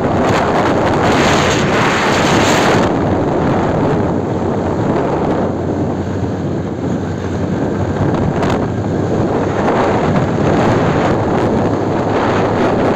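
Wind buffeting the phone's microphone on a moving motorbike: a loud, dense rushing noise, strongest in the first few seconds, with the bike's engine and road noise as a low steady hum underneath.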